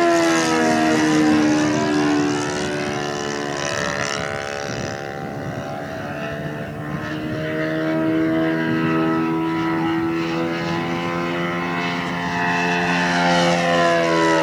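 RC model aeroplane's fuel-burning engine and propeller in flight. The pitch falls as it passes about the start and again near the end, and the sound fades somewhat in between as it flies farther off.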